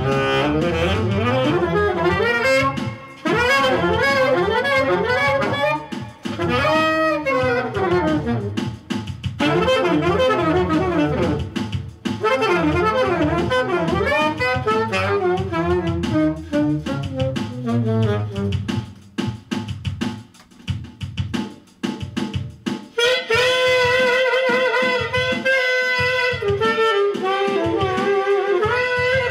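Saxophone playing a jazz line with an elephant-like tone, notes sliding and bending in pitch, over bass and drums. About two-thirds of the way in a steady drum beat comes forward and the sax holds higher, steadier notes.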